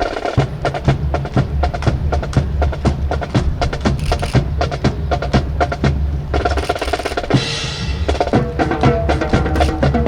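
A drum corps starts playing suddenly: rapid snare-drum strokes and rolls over a steady bass-drum beat. Pitched notes join in over the drumming from about six seconds in.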